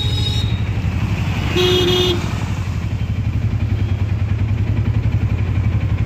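Auto-rickshaw engine running with a fast, even throb while driving along. A vehicle horn beeps once, for about half a second, near two seconds in.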